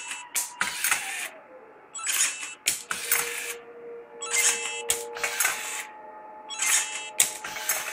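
CRT-571 card dispenser running its motorised feed in a repeated cycle: a motor whine with a clatter of plastic cards being moved through the mechanism and pushed out about every two seconds. This is a card-by-card write/verify stress test. A falling motor tone comes about a second in.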